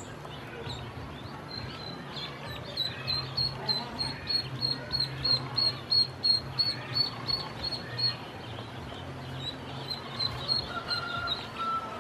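Ducklings peeping while they feed, a rapid run of short high peeps, about three or four a second.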